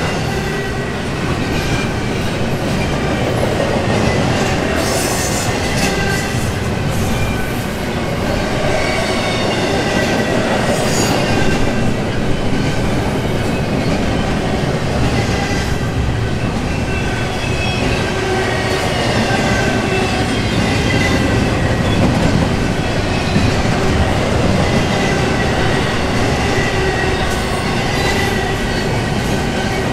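Double-stack intermodal container train rolling past at speed: a steady rumble of steel wheels on the rails with clacking over the joints and faint, wavering high squeal from the wheels.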